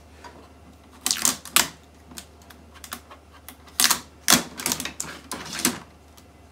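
Shipping tape being pulled off the plastic body and paper tray of a new Epson XP-6000 printer, with handling of its plastic parts: short rips and clicks in several separate bursts, the busiest stretch about two-thirds of the way through.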